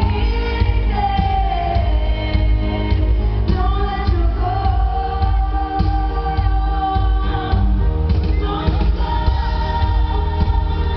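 Live band music: a woman singing lead over grand piano, keyboards, drums and bass, with a heavy low end.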